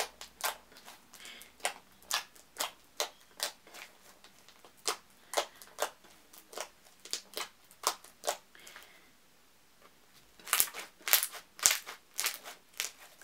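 Thick bead-filled slime being squeezed and stretched by hand, giving sharp irregular clicks and pops about one or two a second. The pops pause briefly and then come in a denser run near the end.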